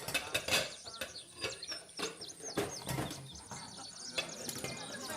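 Small birds chirping in short high calls over a layered festive ambience, with scattered light taps and knocks.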